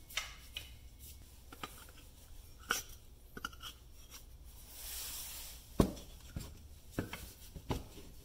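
Handling noises of a steel axe head and a new wooden handle during a test fit: light clicks and a stretch of rubbing, then a sharper knock a little past halfway, followed by a few smaller knocks.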